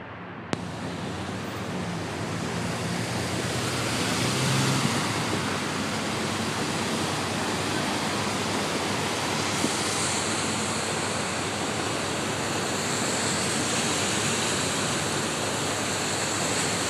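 Floodwater rushing across a street as a steady wash of noise, coming in after a click about half a second in and growing louder over the first few seconds.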